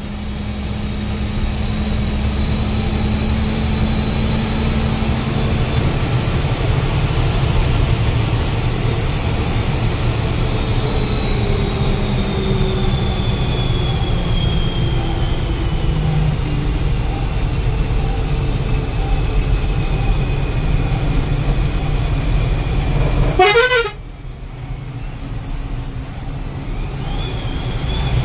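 Steady engine and road rumble of a moving bus, with vehicle horns sounding. Near the end the rumble drops away suddenly and then builds again.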